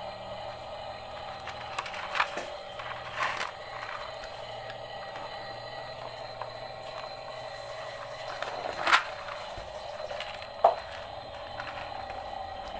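Small geared electric motor of a toy excavator whirring steadily, with a few sharp plastic clacks, the loudest about 9 s in.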